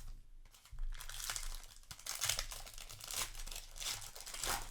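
Crinkling of a foil booster pack wrapper as it is handled and torn open. Irregular crackly rustling starts about a second in and keeps on.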